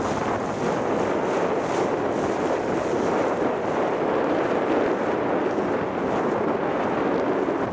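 Steady rushing of wind buffeting the microphone, with water noise, without pause or change.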